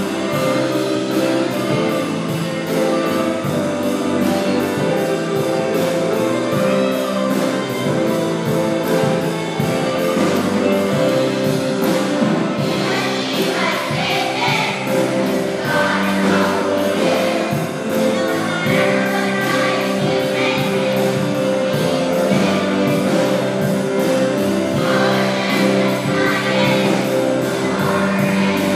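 Children's choir singing with instrumental accompaniment, the voices becoming stronger about halfway through.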